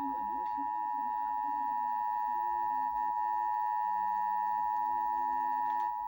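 Emergency Alert System attention signal: the steady two-tone alert (853 and 960 Hz sounded together) played over a broadcast during a required monthly test.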